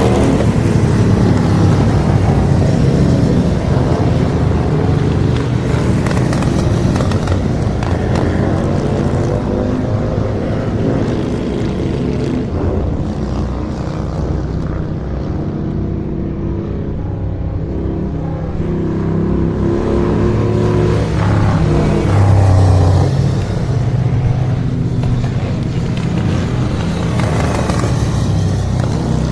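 Vintage racing motorcycles running practice laps, their engines rising and falling in pitch as they pass, with the loudest pass about three-quarters of the way through.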